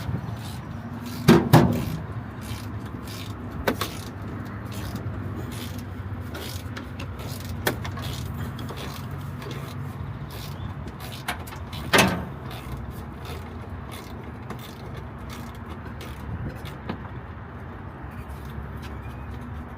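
Scattered knocks and clatter of hand tools and metal parts being worked loose inside a truck cab, over a steady low hum. The loudest knocks come about a second and a half in and again about twelve seconds in.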